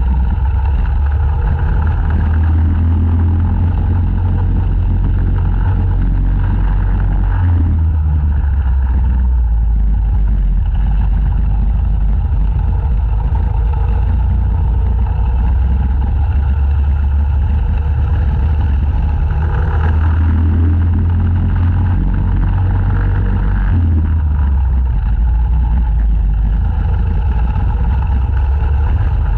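Racing go-kart engine at race pace, heard loud and close from the kart itself. Its note steps down and climbs back up a couple of times as it comes off and back onto the throttle through the corners.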